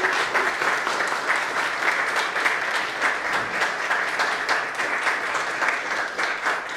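Audience applauding: a dense patter of many hands clapping that starts to die away near the end.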